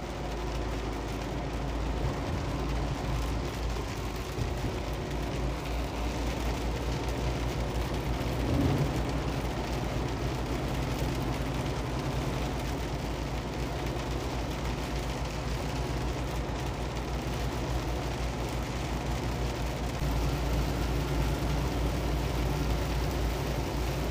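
Semi truck running at highway speed, heard from inside the cab: a steady low engine drone over the hiss of tyres on a wet road and the rain. A single brief thump about nine seconds in.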